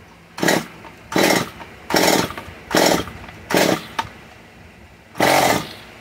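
Stihl MS 194 T chainsaw's two-stroke engine being pull-started with the choke off. There are six pulls of the recoil starter cord: five in quick succession, about one every 0.8 s, then a pause and a longer pull near the end. The engine is trying to start but doesn't catch, which the owner puts down to a little water in the carburetor.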